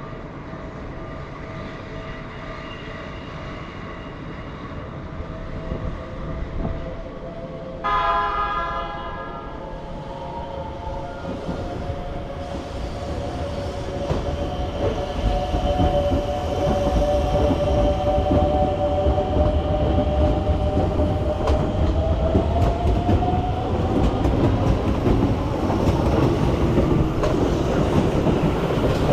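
Keikyu electric train sounding a short horn blast about 8 seconds in, then passing over the level crossing, its wheels clattering on the rail joints and growing louder from about 14 seconds on. A steady warning tone from the crossing bell runs under it.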